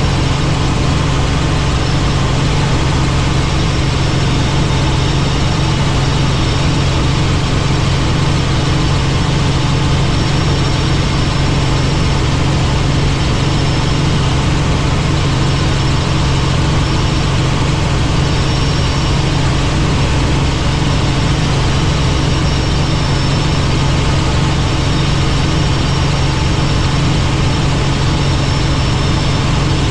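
Helicopter's engine and rotor running with a steady, unbroken drone and a strong low hum.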